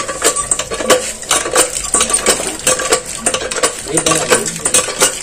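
Cast-iron hand pump (poso) being worked by hand, its handle and linkage clanking and rattling with each stroke. It brings up barely any water: sand has silted up the bottom of the well.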